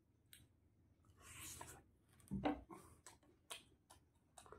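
Faint, scattered mouth clicks and smacks of a person chewing fried chicken with his mouth close to the microphone, with a soft hiss a little after a second in.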